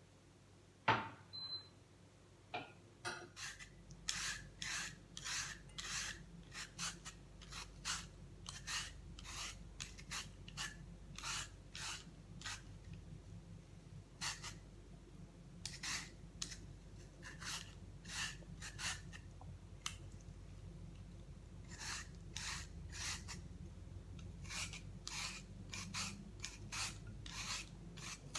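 Y-shaped vegetable peeler scraping the skin off a jicama, short rasping strokes about two a second with a couple of brief pauses. A single knock about a second in.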